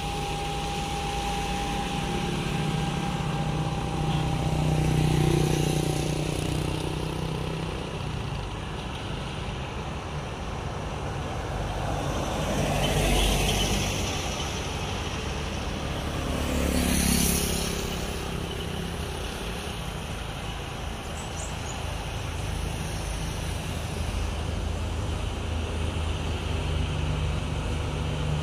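Road traffic passing close by: motorcycles and cars going past one after another, their engines swelling and fading as each passes. The loudest passes come about five, thirteen and seventeen seconds in.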